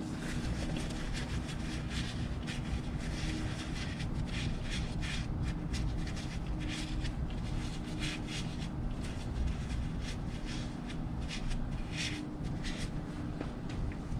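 Hands and tools working at the oil filter cover of a Can-Am Maverick X3: a steady run of irregular small clicks, taps and rubbing scrapes as the cap is worked loose.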